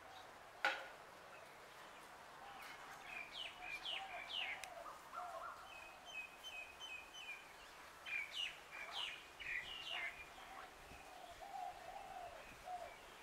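Birds chirping and calling in quick short chirps, over lower wavering notes, with a single sharp click shortly after the start.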